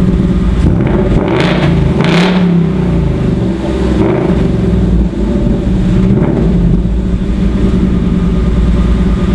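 2018 Ford Mustang GT's 5.0-litre V8 through its stock factory exhaust, idling and revved three times: a longer rev peaking about two seconds in, then two shorter blips, each falling back to idle.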